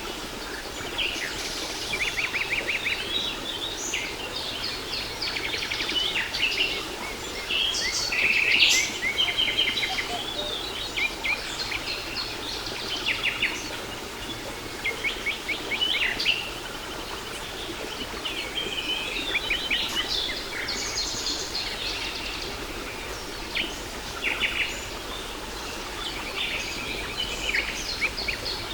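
Several birds singing and calling at once, with many overlapping chirps and rapid trills, over the steady rush of a waterfall.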